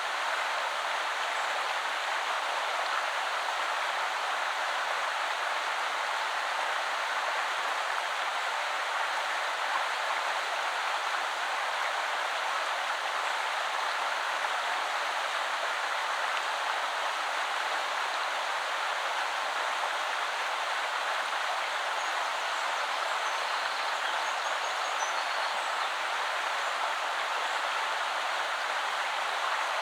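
Shallow woodland river flowing, a steady even rush of water.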